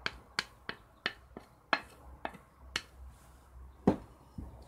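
Sharp, irregular clicks and ticks, about two a second and thinning out, from a stainless steel pot of grated apples on a gas stove. The loudest tick comes near the end.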